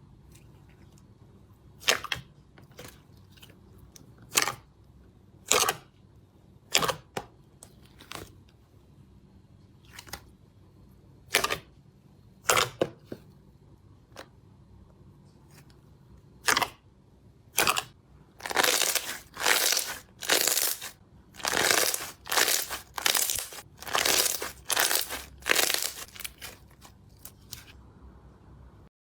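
Slime being pressed and pulled by hand, giving sharp sticky pops and crackles. They come singly at first, then in a quicker run of longer pops, about two a second, in the last third.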